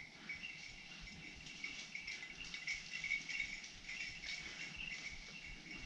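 Insects chirping, a faint, steady high chirring that swells slightly about three seconds in.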